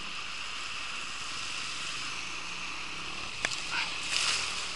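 Small river's water burbling steadily. Near the end a nylon cast net lands on the water with a brief splash, just after a single sharp click.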